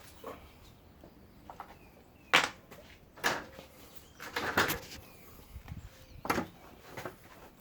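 A handful of sharp knocks and clatters from tools and materials being handled. The loudest comes about two seconds in, and a quick cluster follows around four and a half seconds.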